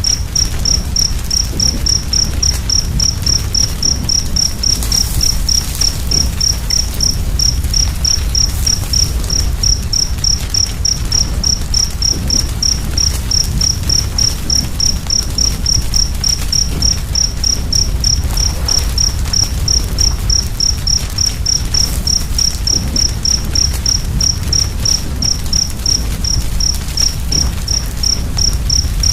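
A cricket chirping steadily at about three high-pitched chirps a second, over the low rumble and soft crackle of a burning fire.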